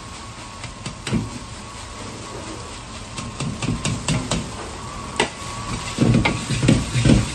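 Metal ladle clacking and scraping against a steel wok as egg fried rice is stir-fried, over a steady hiss. The strokes come faster after about three seconds, and heavier low thumps set in during the last second or so.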